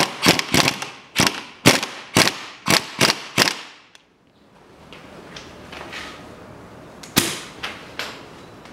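Impact wrench hammering a crankshaft pulley bolt tight in short bursts, about two a second for a few seconds, then a few more strokes near the end.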